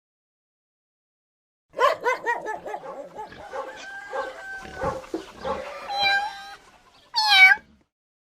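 Dog barking in a quick run of short yaps, then one short high cry falling in pitch near the end.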